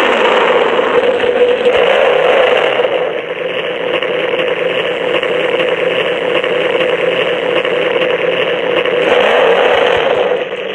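Lightning McQueen Shake N Go toy car playing a recorded race-car engine sound through its small speaker, thin and tinny with no low end, running steadily with a short dip near the end.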